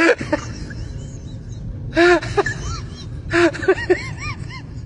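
A young puppy giving short, high yaps, in quick clusters about two seconds in and again about three and a half seconds in, over a steady low rumble.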